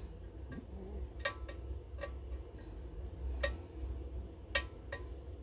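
Light metallic clicks of a lock pick working the pins inside a Goal GCY-79 lock, about seven irregularly spaced ticks, over a faint low hum.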